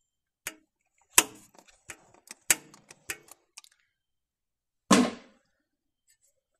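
Sharp clicks and knocks from a filter wrench gripping and working on a car's oil filter: about six short strikes, then a louder rough clatter about five seconds in.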